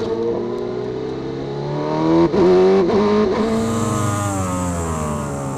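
Onboard sound of racing superbike four-cylinder engines at high revs on the throttle, the engine note gliding slowly up and down. About two seconds in the pitch wobbles briefly and the sound switches to a second bike, with more wind hiss over its engine.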